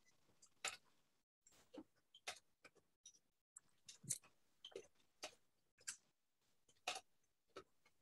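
Faint, irregular clicking at a computer, about one sharp click every half second with short quiet gaps.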